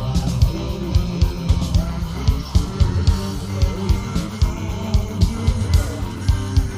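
Rock song with guitar and a steady drum beat.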